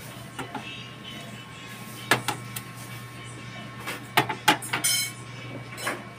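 Cast-iron calibration weights set down one after another on the stainless steel platter of a digital price-computing scale: sharp metal knocks, two close together about two seconds in, then a quick cluster about four to five seconds in and one more near the end.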